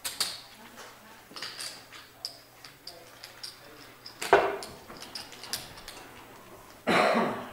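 Clay poker chips clicking together again and again as players handle their stacks. A sharper knock comes about four seconds in, and a short rustling burst comes near the end.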